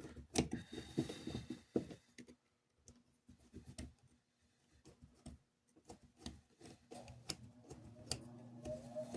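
Light, irregular clicks and taps of small metal parts and a screwdriver being handled while the motor mount screws of a toy train motor truck are fitted, busiest in the first couple of seconds and sparse after.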